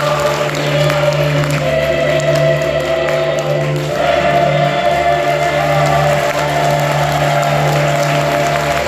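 Mixed choir singing held chords, with notes sustained for several seconds and a change of chord about four seconds in.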